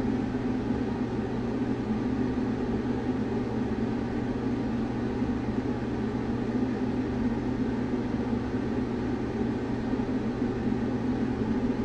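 Steady low mechanical hum running unchanged.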